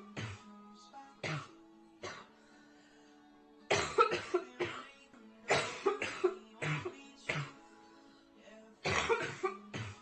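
A girl coughing hard from a severe chest cold: two single coughs, then three fits of several coughs in quick succession. Steady background music plays underneath.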